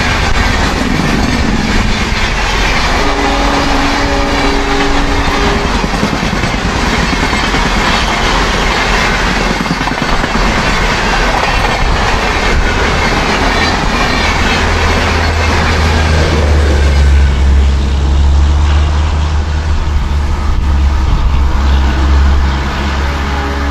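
An express train's passenger coaches running past at speed, wheels clattering steadily over the rails. A short chord of steady tones sounds about three seconds in, and a deep hum comes in about two-thirds of the way through.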